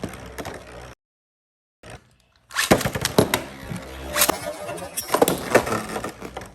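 Metal Fight Beyblade tops (Storm Pegasus and Lightning L-Drago) spinning in a plastic stadium, with a steady rattling scrape and repeated sharp clacks as they collide. The sound cuts off completely about a second in and comes back about two and a half seconds in, with several hard hits.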